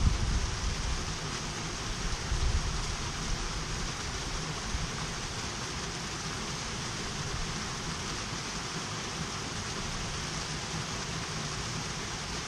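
Steady rushing of a fell beck running over rocks, with wind buffeting the microphone in low gusts, strongest in the first couple of seconds.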